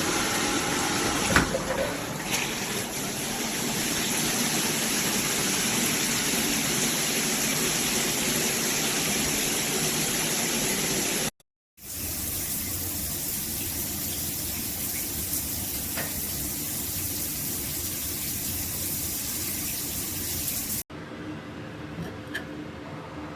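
Water spraying steadily from a shower head, with a single knock about a second in. The spray drops out for a moment about halfway through and then continues, and it stops suddenly near the end, leaving a quieter low hum.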